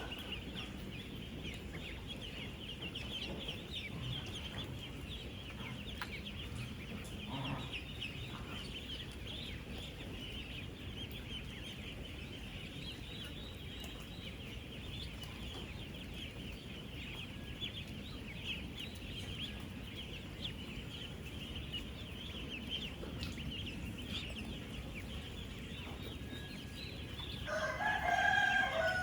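Dense chorus of thousands of ten-day-old ducklings peeping together, a steady mass of overlapping high calls. Near the end a louder, lower call rises above the chorus.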